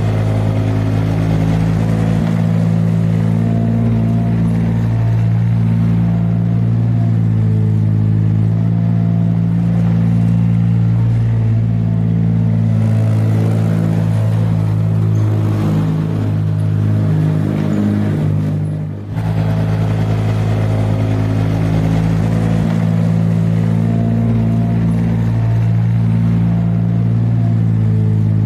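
Heavy vehicle engine running at a steady, even pitch, a dubbed engine sound effect, with a brief dip in level about two-thirds of the way through before it carries on.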